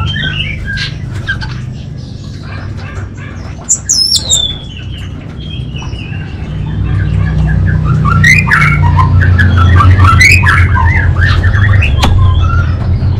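Orange-headed thrush singing a string of short, varied calls, with a whistle falling in pitch about four seconds in and dense rapid call runs in the second half, over a steady low hum that grows louder from about seven seconds.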